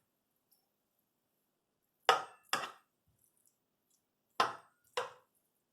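Four sharp knocks of kitchenware, in two quick pairs about two seconds apart.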